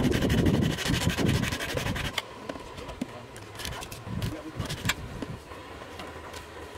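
Knife blade shaving wood from a bark-covered stick in repeated scraping strokes, loudest in the first two seconds, then quieter with a few sharp clicks.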